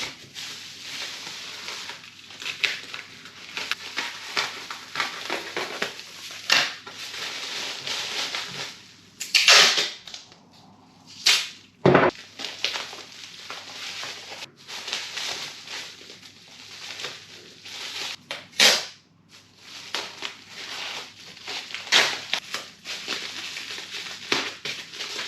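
Packing sounds as a small parcel is wrapped and secured: crackling, crinkling and clicking of packaging, with a couple of louder rasping pulls, one around ten seconds in and another past halfway, and a sharp knock about twelve seconds in.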